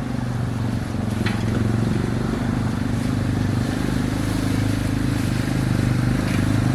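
Four-wheeler (ATV) with a snow plow mounted, its engine running steadily as it approaches and getting a little louder.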